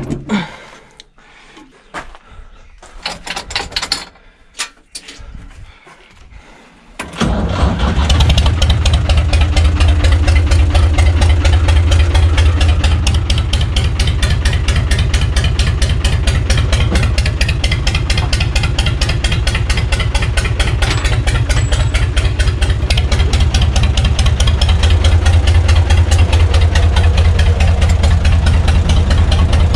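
A UTB U445 tractor's diesel engine starts about seven seconds in and then runs steadily and loud with a rapid train of sharp exhaust pulses, running with no exhaust muffler fitted. Before it starts there are a few short metallic knocks and clicks.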